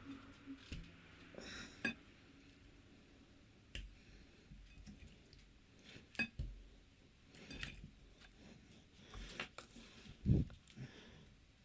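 Slime being squished and stretched by hand: scattered sticky clicks and pops, with one louder, deeper squelch near the end.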